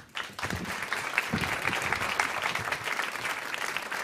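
Audience applauding, starting a fraction of a second in and keeping up steadily.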